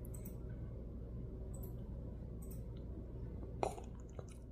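Pomsky puppy's mouth sounds while eating a Pup Cup: a few scattered wet clicks and smacks, the sharpest about three and a half seconds in, over a steady low hum.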